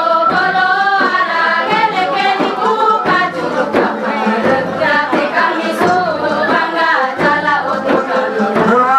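A group of voices singing a traditional folk song together, a dance song accompanying a circle dance.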